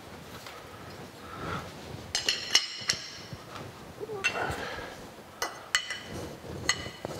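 Steel wrench clinking on the overarm clamp bolts and cast iron of a Kearney & Trecker horizontal milling machine as the bolts are loosened. It makes a scatter of sharp metallic clinks with a brief ring, most of them in the second half.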